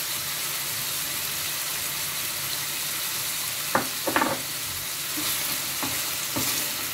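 Ground beef sizzling steadily as it browns in a frying pan. In the second half it is stirred with a wooden spoon, which knocks and scrapes against the pan a few times.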